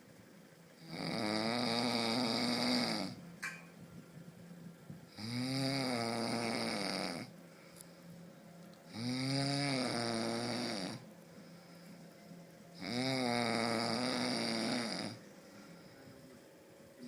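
A person snoring heavily: four long, loud snores, each about two seconds long, come about every four seconds. Each snore is a buzzing drone whose pitch rises and then falls, with quieter breaths in between.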